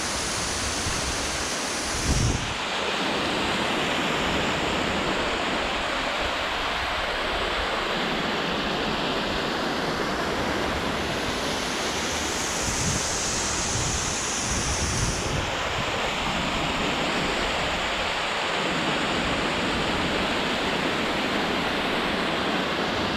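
Waterfall: a steady rush of falling water, with low wind buffets on the microphone now and then and a brief thump about two seconds in.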